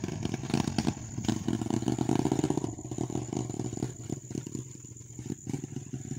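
Small motorcycle engine running as the bike rides away, its sound growing steadily fainter.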